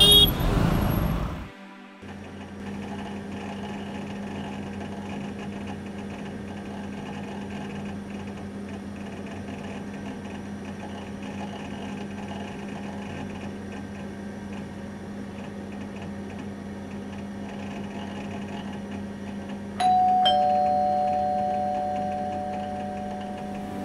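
Street traffic noise cuts off about a second and a half in, leaving a steady low hum. About twenty seconds in, a two-tone ding-dong chime sounds, a higher note and then a lower one, ringing on and slowly fading.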